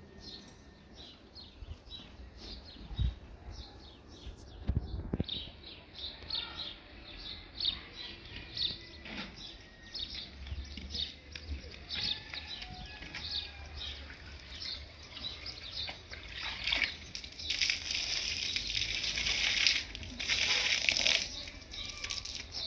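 Water sloshing and splashing in short, repeated strokes, with a louder stretch of rushing water about three-quarters of the way through.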